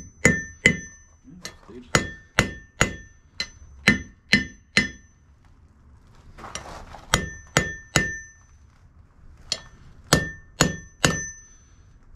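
Blacksmith's hand hammer striking a steel Alec Steele anvil, a run of about a dozen quick blows, a pause, then two shorter runs. Each blow is a sharp clang that rings briefly with a clear high tone.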